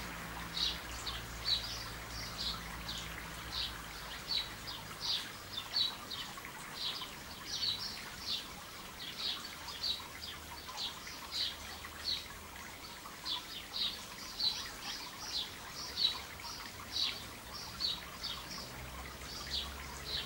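Small birds chirping, a steady run of short high chirps at about two a second, over a faint low hum.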